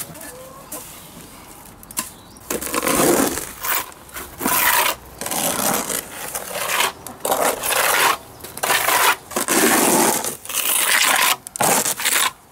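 Steel trowel scraping wet cement mortar out of a hand-held tray and smearing it onto a brick wall. It makes a run of rough scrapes, each under a second, coming in quick succession after a quieter first couple of seconds.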